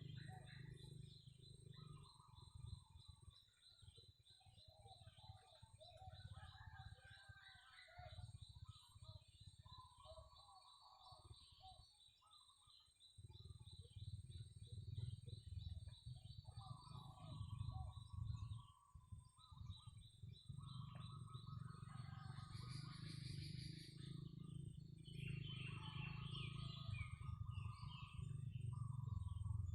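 Several birds calling together: a high, steady trill and repeated short whistled phrases, over a low background rumble.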